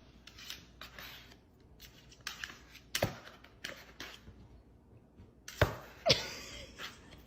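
Quiet room with scattered faint clicks and taps; the two loudest come about three quarters of the way through, half a second apart.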